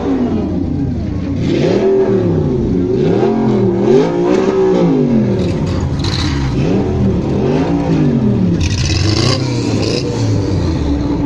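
A car engine revved up and down again and again, about five blips, the pitch climbing and falling back each time.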